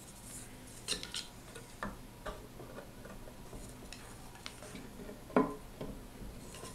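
A few scattered short clicks and knocks as neodymium magnets are pushed along between steel bars with a wooden dowel and fingers; the loudest knock comes about five seconds in.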